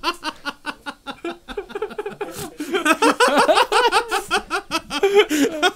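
Men laughing hard: a run of rapid, breathy laughs that grows louder about three seconds in.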